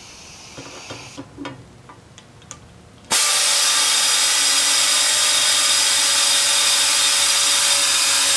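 A few light clicks and knocks as the ITPRA-ICA1 pancake power feed drill is set and clamped on the metal plate. About three seconds in, its air motor starts suddenly and runs steadily with a loud hiss and a high whine as it feeds a number 10 drill into the metal, at a feed rate set by the Kinechek valve.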